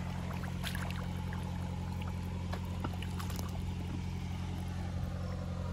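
Soft sloshing and small splashes of wading through shallow water, with scattered light ticks, over a steady low hum.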